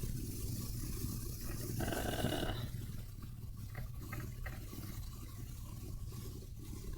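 Steady low electrical hum and hiss from a microphone's background noise, with a brief rush of noise about two seconds in.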